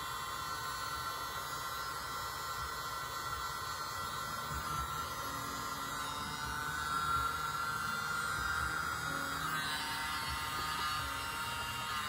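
A steady electric hum with a thin whine from a small motor. The whine rises slightly and then drops in pitch about ten seconds in.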